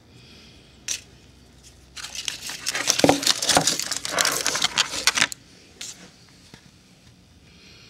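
Chocolate-cigar packaging, foil wrappers and a clear plastic case, crinkling as it is handled: a single click about a second in, then about three seconds of dense crinkling, and a few light clicks after it.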